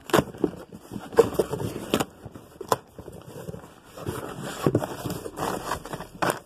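Hands rummaging in a cardboard box packed with shredded paper filler: paper rustling and crinkling, with cardboard flaps scraping and a few sharp knocks.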